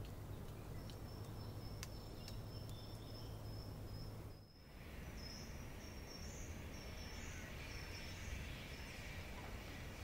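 Forest ambience recording: high, thin, repeated chirping calls over a steady background hiss. About halfway through the level dips briefly, and after it a fainter hiss joins the chirps.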